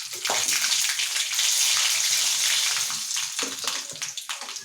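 Dried red chillies frying in hot coconut oil with spluttering mustard seeds in a kadai: a dense sizzle full of small crackles and pops, easing off in the last second or so.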